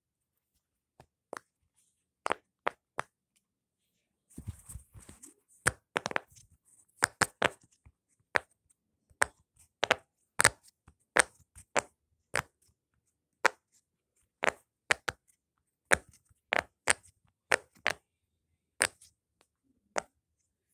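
Sharp, irregular clicks and taps from a fidget toy being played with, about one or two a second, with a short rustle about four seconds in.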